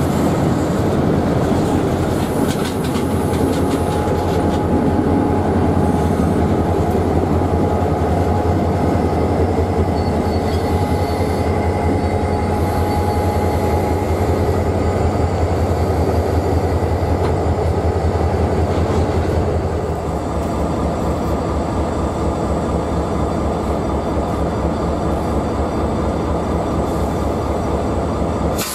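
Freight train of tank cars passing close by, the wheels rumbling steadily and clicking over the rail joints, with thin wheel squeals coming and going. In the second half, diesel locomotives at the rear of the train go by.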